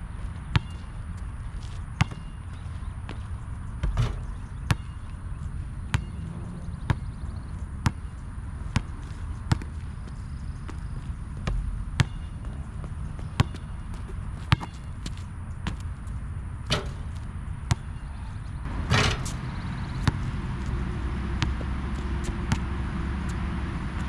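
Molten BG3800 basketball bouncing on an outdoor hard court: single sharp bounces about a second apart, with one longer, louder hit about three-quarters of the way through. A steady low rumble runs underneath and grows near the end.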